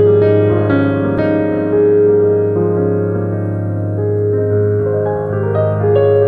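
Slow instrumental keyboard music in a piano sound: chords and single notes struck about every second and left to ring, over a held low bass note.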